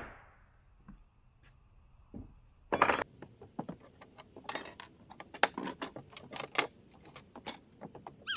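A sharp knock about three seconds in, then several seconds of quick, light clicks and clinks, like small hard objects being handled.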